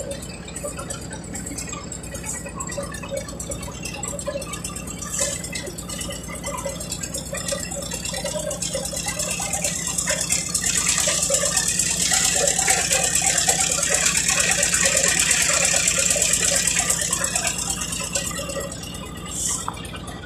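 Small wooden river boat's engine running with a steady, fast rattle, and water rushing past the hull that swells louder from about ten seconds in and eases off near the end.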